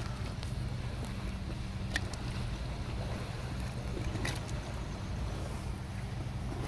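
Water bubbling up out of the soil at the foot of a downspout, with a few small pops, over a steady low hum.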